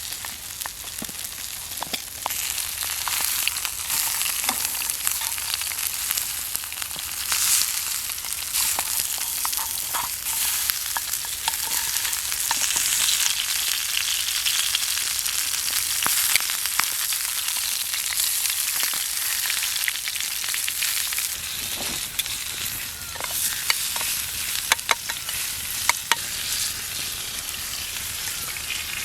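Food sizzling and frying in a pan, a steady hiss broken by irregular crackles and pops.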